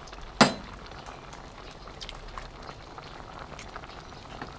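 Pot of soup boiling steadily, with one sharp knock about half a second in as an egg is cracked on the rim of the stainless steel pot.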